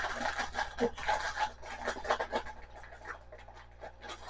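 Plastic packaging being handled, rustling and crinkling in irregular scratchy rubs that thin out and grow quieter in the second half.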